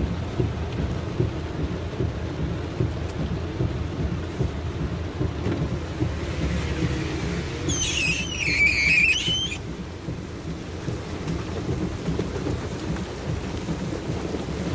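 Heavy rain drumming on a car's roof and windscreen, heard from inside the car as a dense, steady rumble along with the low noise of the car on the wet road. About eight seconds in, a brief high squeal lasts about a second and a half.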